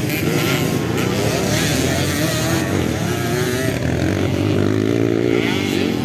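Several dirt bike engines revving at once, their pitches rising and falling and overlapping as the bikes race around the motocross track.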